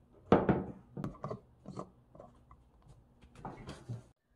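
Plastic screw-top lid being set on a canister of garlic pickles and twisted shut: a few light knocks and clicks, then a rasping rub of the lid threads near the end.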